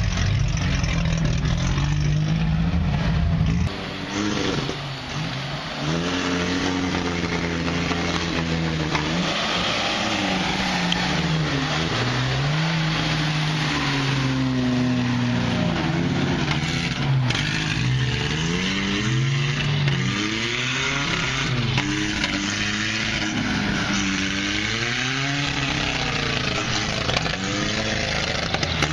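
Lifted pickup truck's engine running steadily at first, then revving up and down over and over as the truck churns through deep mud and water.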